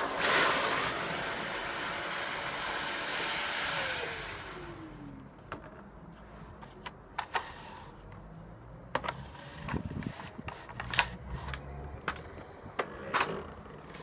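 Canister vacuum cleaner running with a steady rush of suction, then switched off about four seconds in, its motor winding down in a falling whine. Afterwards only scattered light clicks and knocks.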